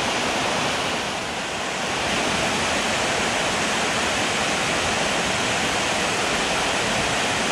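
Small waterfall pouring into a stream pool: a steady, loud rush of water from a stream running high and fast after weeks of rain.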